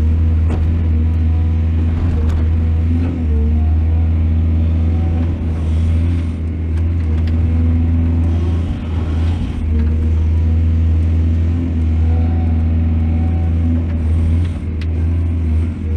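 Heavy diesel engine of a mining excavator running steadily with a deep drone, its pitch wavering slightly, with a few light clicks and knocks.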